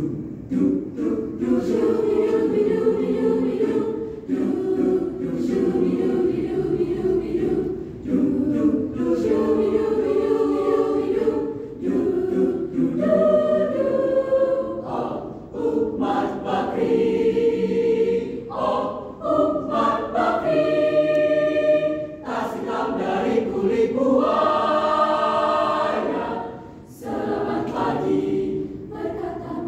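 Mixed choir of women's and men's voices singing in harmony, in phrases broken by short breaks, with a higher chord held for a couple of seconds in the last third.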